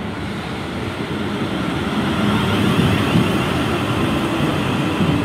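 Class 444 Desiro electric multiple unit moving slowly through the station, its running and traction noise a steady rumble that grows louder as it approaches.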